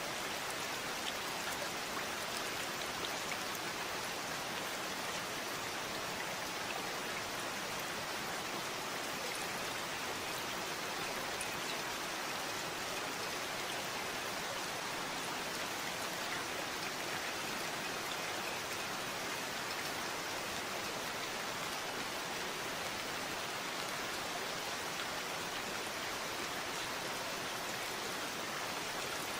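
Steady rain falling, an even hiss of drops with faint individual drop ticks, unchanging throughout.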